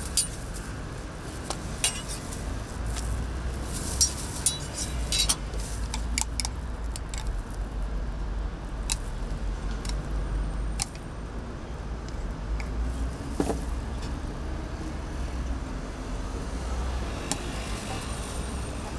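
Scattered clinks and taps of crepe-making utensils, a wooden batter spreader and a metal spatula, against a crepe griddle and a glass jar of chocolate spread. They are thickest in the first several seconds, then sparser, over a steady low hum.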